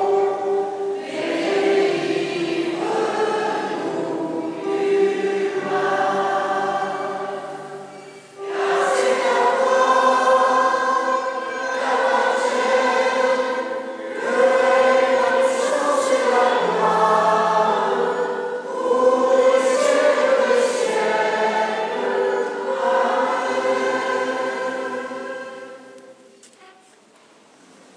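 Church choir singing a hymn in held notes, with a short break about eight seconds in; the singing dies away near the end.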